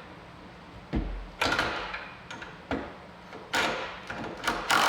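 Clunks and scraping of the Weeds B Gone Thruster being worked out of its quick-release dock bracket: about five sharp knocks spread through, each with a short scraping slide after it.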